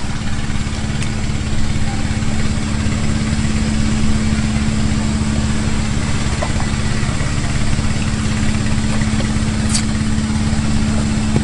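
An engine running steadily at an even, unchanging speed, a constant low hum. One brief click comes near the end.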